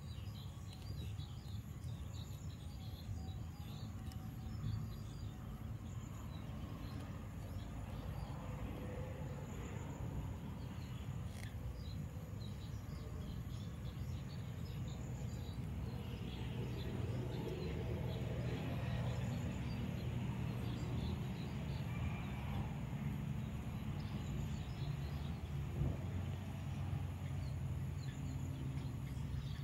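Outdoor background ambience: a steady low rumble with faint, scattered bird chirps throughout, and a single faint click about eleven seconds in.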